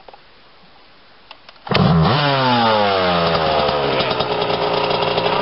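A quiet second and a half with a couple of faint clicks. Then a two-stroke dirt bike engine fires loudly with a rev whose pitch falls away, and settles into a steady, fast-firing idle.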